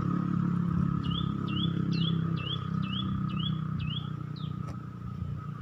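A small bird calling a quick series of short rising chirps, about two a second, over a steady low engine hum that fades near the end, with a faint constant high tone throughout.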